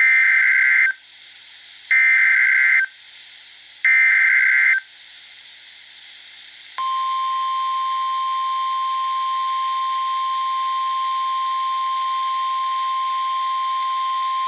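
Emergency Alert System SAME header: three raspy digital data bursts about two seconds apart. About seven seconds in comes the steady single-pitch 1050 Hz weather-radio warning alarm tone, which signals the start of a new warning message.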